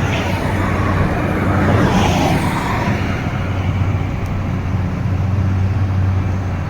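Excavator diesel engine running steadily with a low drone, and a swell of rushing noise that rises and fades about two seconds in.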